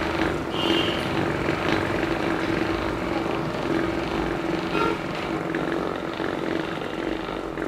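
Steady hum of a small motor running at a constant pitch, with a rushing noise underneath.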